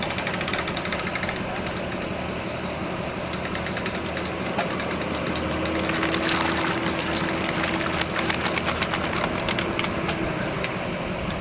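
An engine idling with a rapid ticking clatter over a steady low hum. A steady tone joins about halfway through and stops a little before the end.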